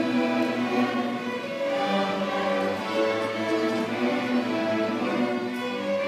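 Student string orchestra of violins, cellos and double basses playing a piece, bowing held notes that change every half second to a second.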